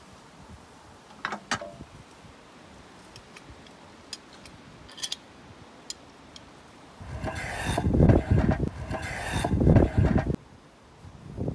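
Sanding block rubbed back and forth along a wooden board: hand-sanding in long, loud strokes that start about two-thirds of the way in. Before that, only a few light clicks.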